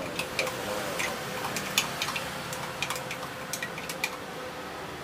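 About ten irregular sharp clinks and taps of utensils against cups and glassware while an iced drink is made up, the loudest a little under two seconds in, over a steady background hum.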